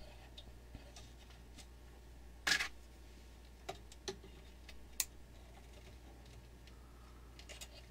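Faint handling sounds of pliers and wire on a metal amplifier chassis: a short scrape about two and a half seconds in, then a few sharp small clicks, over a steady low hum.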